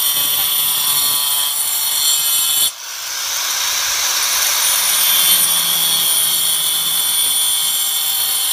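Electric angle grinder running at high speed, its disc cutting grooves into a thick wooden chopping board: a steady high whine over a gritty cutting noise. The sound drops away briefly about three seconds in and builds back up.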